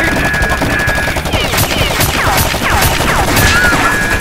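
Rapid, continuous machine-gun-style gunfire, a dense rattle of shots, with repeated falling whistle-like tones over it.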